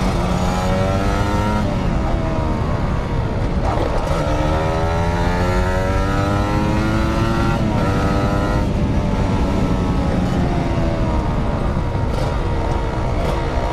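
Motorcycle engine accelerating, its pitch rising and dropping back at each gear change, then falling as it eases off in the last few seconds. A steady rush of wind and road noise runs underneath.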